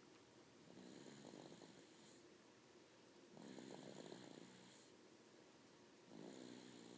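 Snoring: three slow, quiet snores about two and a half to three seconds apart, each lasting around a second and a half, with a fluttering rattle in each.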